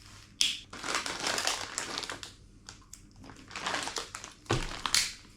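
Crinkling plastic in bursts as the seal on a bottle of hot sauce is worked loose and torn off, with a sharp click near the end.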